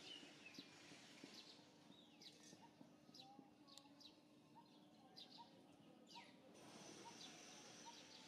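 Faint birdsong: small birds chirping with short falling calls, over a low steady hum.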